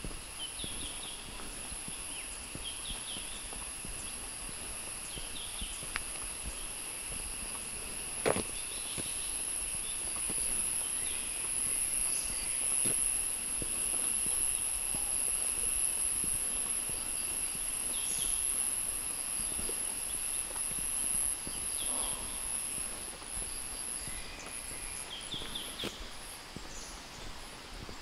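Forest ambience: a steady high-pitched insect drone over a second, lower insect hum, with short bird chirps every few seconds and scattered soft footfalls and clicks, the sharpest about eight seconds in.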